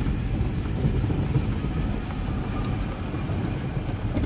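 A vehicle driving along a rough dirt road: a steady low rumble of engine and road noise.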